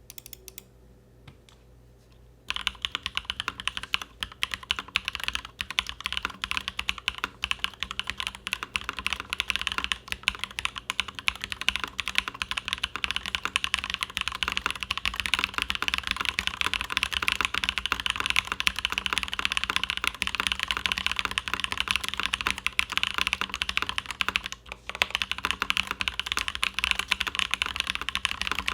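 Fast, continuous typing on a custom mechanical keyboard: a full-aluminium KBDFans Endless-80 with lubed Durock POM linear switches on an aluminium top-mount plate, PBT keycaps and case foam. The typing starts about two and a half seconds in after a few scattered key presses, with a brief pause near the end.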